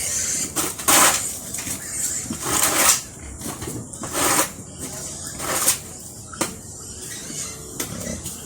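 Shovel scraping pig manure across a concrete floor, in a series of irregular strokes about a second apart.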